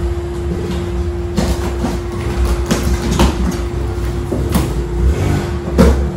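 Packing tape and cardboard on a large box being pulled and scraped in several short rasps as it is opened. Under them is the steady hum and low rumble of an electric fan.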